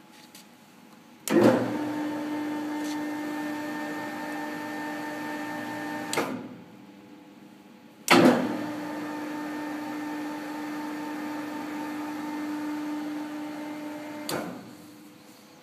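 Morgan Rushworth 2000 mm × 10 mm plate bending rolls run under their electric drive with a steady hum, started and stopped twice, with a pause of about two seconds between runs. Each run lasts about five to six seconds and opens with a sharp knock as the drive engages.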